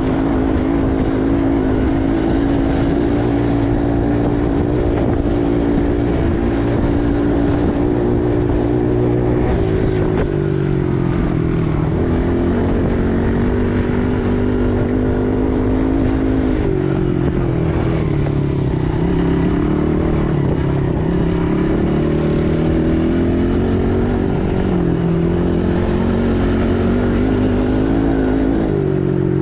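ATV engine running under way. Its pitch holds steady for about ten seconds, then drops and rises and falls repeatedly as the throttle and speed change.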